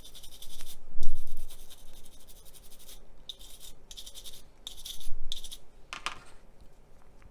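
A stiff brush scrubbing wet paint on a small plastic model part in bursts of quick strokes with short pauses, to break the surface of the top coat and reactivate the chipping fluid underneath so the paint chips off. Two dull knocks of the part being handled sound about a second in and about five seconds in.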